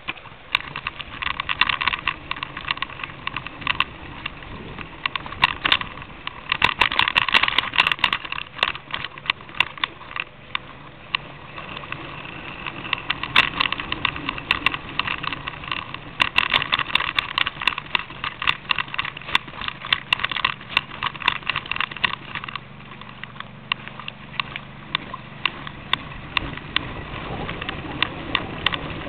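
Bicycle being ridden along a cycle path: a continuous irregular clatter and rattle of the bike and its mounted camera, with tyre rumble underneath.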